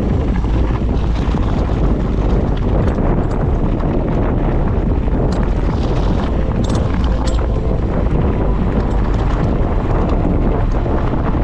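Wind buffeting the microphone of a mountain biker's camera while riding at speed, a steady low rushing noise with a few faint clicks.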